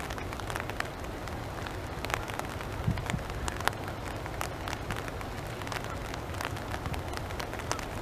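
Light rain falling on a pond: scattered, irregular sharp drips and taps over a low steady rumble.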